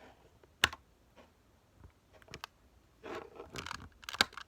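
Plastic Rubik's cube being twisted by hand: scattered sharp clicks, the loudest under a second in, then a quick run of clacking turns about three seconds in.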